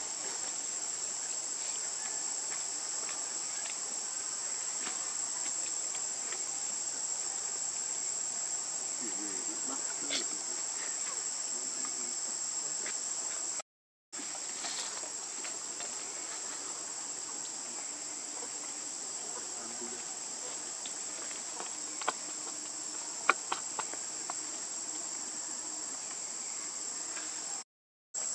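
Steady, high-pitched insect chorus, cutting out briefly twice, with a few faint ticks in the last third.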